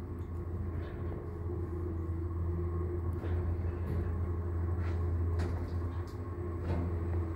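Passenger lift car travelling upward: a steady low hum and rumble of the moving car, with a few faint clicks along the way.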